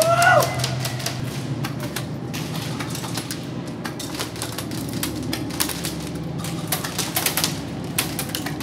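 Airsoft gunfire: irregular sharp clicks of BB shots and impacts, several short rapid bursts, over a steady low hum.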